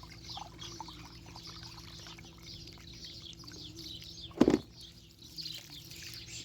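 Small birds chirping, with many short falling chirps. About four and a half seconds in there is one brief, loud thump.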